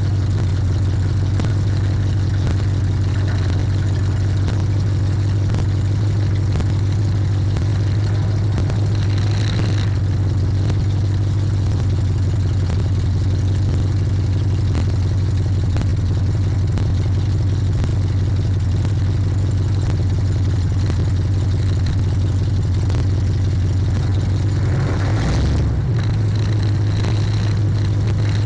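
Loud car engine and exhaust running at low speed, a steady deep drone that is distorted because the car is so loud.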